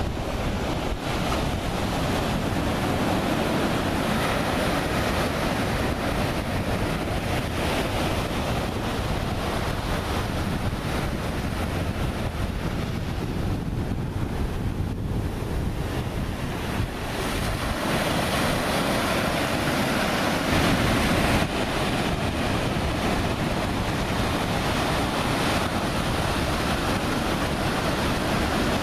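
Ocean surf breaking and washing in a steady roar, with wind buffeting the microphone. It swells louder for a few seconds about two-thirds of the way through.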